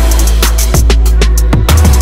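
Electronic background music with a fast, busy drum beat over a heavy, sustained deep bass.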